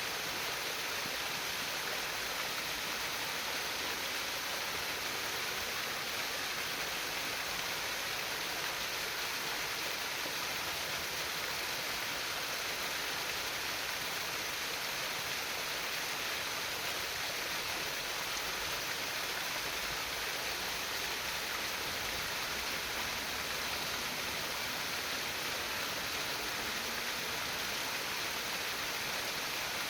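Water flowing and babbling over stones in a stream, a steady, even trickling rush.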